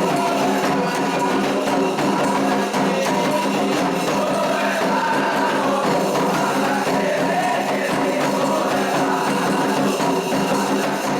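Candomblé ritual song: voices singing together over percussion, without a break.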